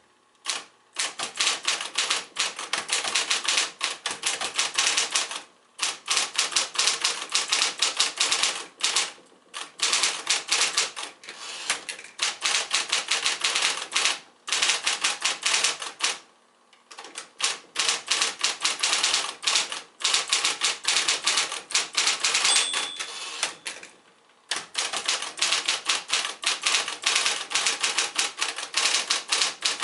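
Circa-1970 Smith-Corona Electra 120 electric typewriter typing: long runs of rapid keystrokes, broken every few seconds by brief pauses.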